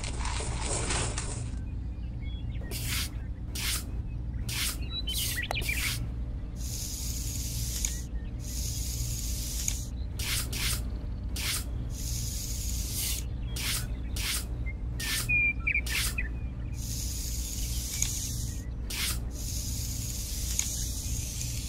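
Small trowel scraping and spreading sand: a series of short, hissing scrapes, some drawn out longer.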